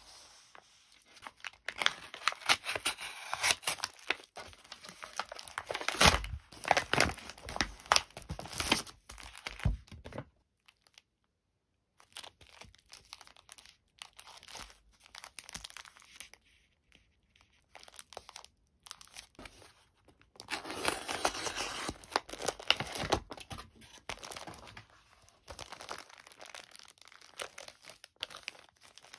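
Plastic packaging and wrapping being handled, crinkling and tearing in bursts, with a short pause about ten seconds in and a second loud stretch a little after twenty seconds.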